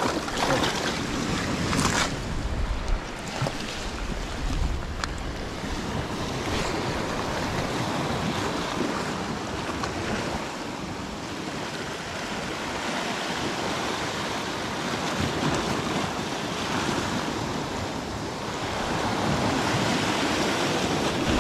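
Sea waves washing and breaking on a rocky shore, with wind buffeting the microphone. A few sharp clicks in the first seconds, and the surf swells louder near the end.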